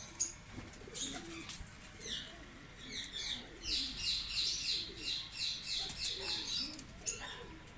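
A rapid run of high, falling chirps, about four or five a second, starting about halfway through and stopping shortly before the end, with scattered single chirps before it. Pigeons coo softly and low underneath.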